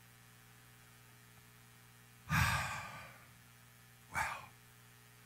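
A man sighing: a long breathy exhale about two seconds in, then a shorter one about two seconds later, over a faint steady hum.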